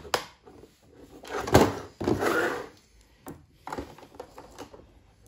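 Clicks and scrapes of a hard-plastic Beyblade top being worked in the fingers as its metal part is pried loose, with one louder scraping rustle about a second and a half in.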